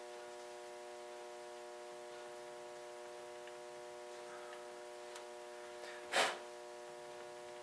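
Steady electrical hum with a few faint ticks, and one short rushing noise about six seconds in.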